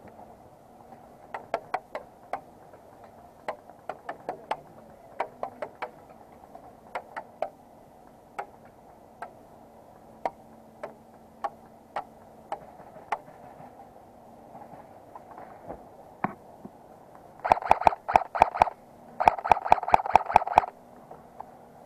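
Airsoft guns firing: scattered single shots, then near the end two rapid full-auto bursts with a buzzing whir running under the shots.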